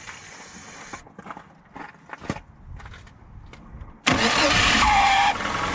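A few light clicks and knocks, then about four seconds in the VAZ-2111's starter cranks with a whistle and the engine catches and keeps running. The whistling starter is the fault being shown.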